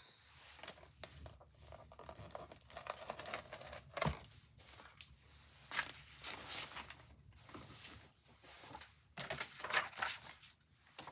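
Paper being handled, rustling and crinkling in irregular bursts, with a sharp tap about four seconds in. This is the sound of paper stamping masks being picked up and laid on a card.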